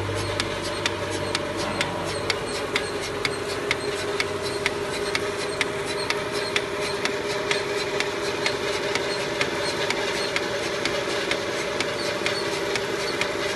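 Portable bucket milking machine running: a steady motor hum from the vacuum pump with the pulsator clicking evenly, about three times a second.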